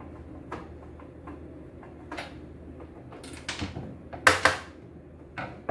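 White plastic machine cover panel and a screwdriver being handled on a wooden workbench: scattered light clicks and a rustling scrape, then two loud knocks about four seconds in and another knock near the end.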